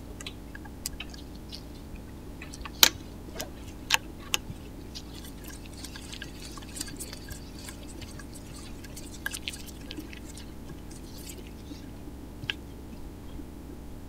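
Small metal clicks and light scraping as an Allen key turns the pad retaining pin into a Tektro hydraulic disc brake caliper. The sharpest click comes about three seconds in, with a few more around four seconds and near the end, over a steady low hum.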